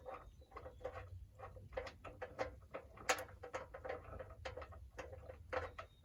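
Quick, irregular light clicks and taps of hardware being handled while a steel sawmill toolbox is fitted, several a second.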